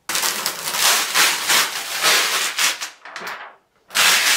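Rustling of a plastic Cricut cutting mat being handled and flexed, in irregular waves with a short break about three and a half seconds in.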